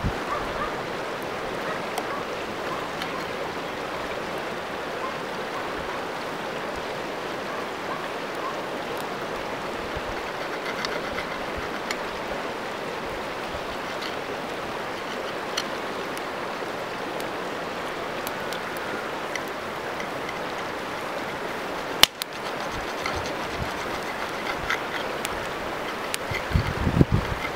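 Steady rush of a flowing river, with faint scattered clicks of a knife and fork working against a cast iron pan, a sharp click about 22 seconds in and a few low thumps near the end.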